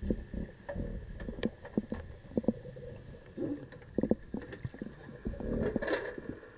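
Underwater sound inside a metal diving cage: irregular muffled knocks and clicks over a low rumble, with a longer, louder rush of noise near the end.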